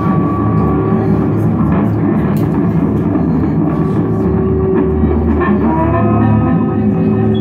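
Electric guitar played through effects pedals as noise music: a loud, dense, noisy wall of sound over a steady low drone, with a few rising glides in pitch in the second half.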